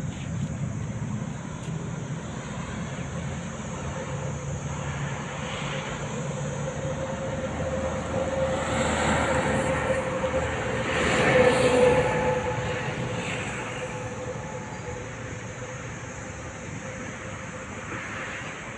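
A passing motor vehicle, heard as a steady drone with a hum. It swells to its loudest about twelve seconds in, then fades away.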